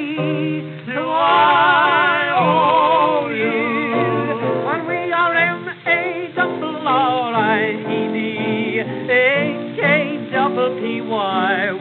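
Ragtime song on a 1912 acoustic-era disc recording: voices singing with a wide, wavering vibrato over a small band accompaniment. The sound is thin and narrow, with no deep bass and no bright top.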